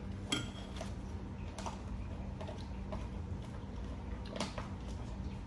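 A few short, light clinks and taps of dishes, spaced out, over a steady low hum.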